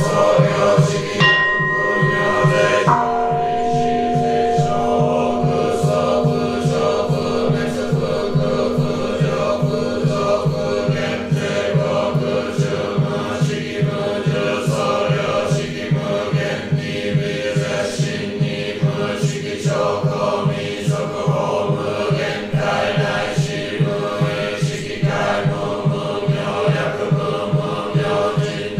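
Zen Buddhist chanting by a group of voices over a quick, even knocking beat. A ringing tone starts about three seconds in and fades away slowly.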